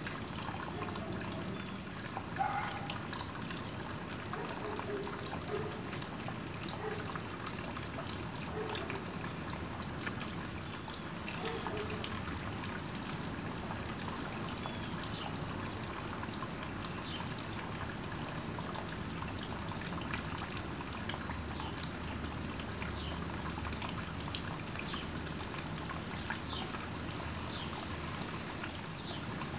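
Garden pond water trickling steadily, with scattered small plinks of drops.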